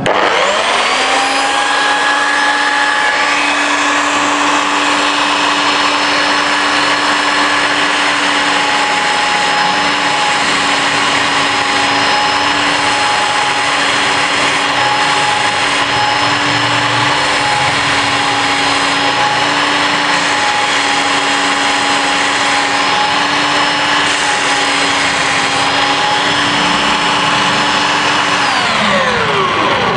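Stanley SB90 belt sander, turned upside down as a bench sander, spins up at its lowest speed setting. It runs with a steady motor whine and belt noise while a small wooden block is sanded on the belt. Near the end it is switched off and winds down, its pitch falling.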